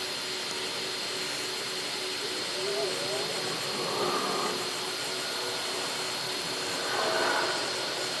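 Hot-air blower running steadily with a constant high whine over its fan hiss, heating the screen adhesive to soften it so the shattered glass can be lifted.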